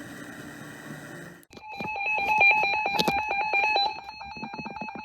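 Steady radio hiss and hum, cut off about a second and a half in by the electronic alert tones that open an Emergency Alert System flash flood warning: a rapid, chirping run of beeps jumping between a low and a high pitch, easing near the end.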